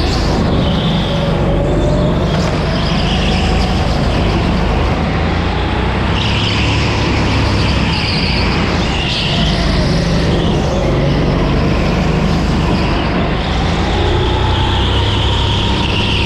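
Go-kart engine heard onboard, running continuously with its pitch slowly rising and falling as the kart speeds up and slows through the laps.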